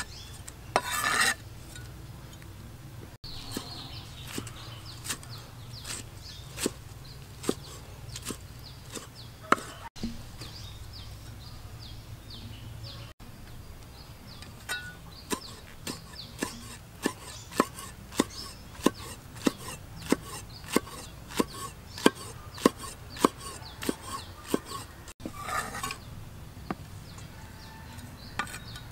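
Meat cleaver chopping on a thick round wooden chopping block: sharp knocks, irregular at first, then a steady run of about two to three strokes a second through the second half. A short scraping rustle comes near the start and again near the end.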